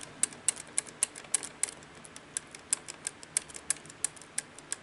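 Small solenoid switch inside a Sony SL-100 Betamax deck being flicked back and forth by finger, clicking sharply about three to four times a second, to work cleaning alcohol into its contacts.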